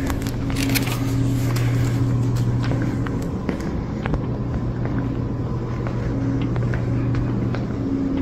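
A steady low machine hum with a higher tone that comes and goes, and faint footsteps on a hard tile floor.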